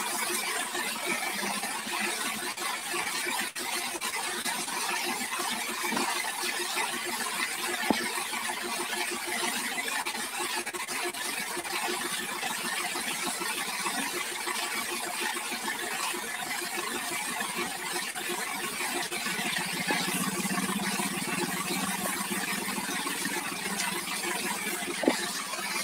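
Mahindra Arjun 555 DI tractor's chained rear tyre spinning in place on a wet road under a hose jet: a steady, hissing screech of tyre, chains and spray, with the four-cylinder diesel engine running under it.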